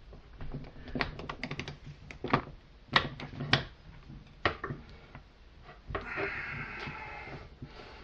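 Metal hand tools clicking and knocking as a socket, ratchet and wrench are fitted onto an impact driver's aluminium gear housing, a dozen or so sharp separate clicks. Near the end comes a steady rasping sound lasting about a second and a half.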